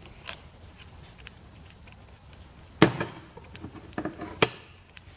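Metal hand tools and loosened bolts clinking and knocking while battery cables are being disconnected, with two sharp clanks, one about three seconds in and another about four and a half seconds in.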